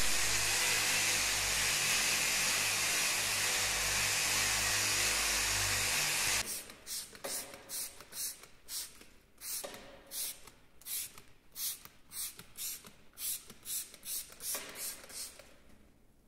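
A steady loud rushing noise with a low hum cuts off about six seconds in. It is followed by a hand trigger spray bottle misting liquid onto a tempered glass railing panel in quick short squirts, about two or three a second.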